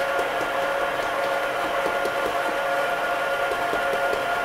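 Stand mixer motor running steadily at low speed, a steady hum with a whine above it, its dough hook kneading a wet bread dough in a stainless steel bowl. Faint irregular knocks sound under the hum.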